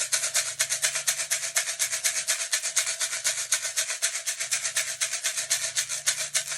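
A hand-made ritual rattle shaken quickly and evenly, about nine shakes a second, in a steady continuous rattle.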